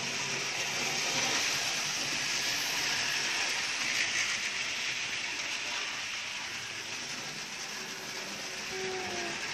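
Model railway train running along the track: a steady whirr and rattle of its small electric motor and wheels on the rails.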